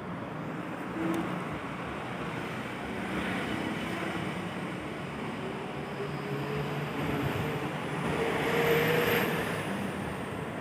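Road traffic noise: a steady rumble with the hum of passing vehicle engines, swelling a little near the end.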